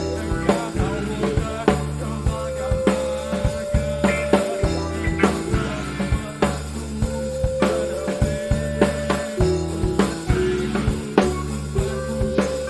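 Rock band playing an instrumental passage: a drum kit keeps a steady beat with regular kick and snare hits under a bass line and sustained melodic lines.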